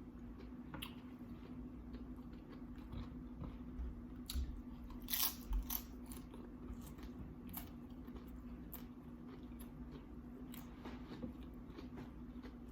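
A person chewing tortilla chips from loaded seafood nachos, with irregular crisp crunches that are loudest about five seconds in, over a faint steady hum.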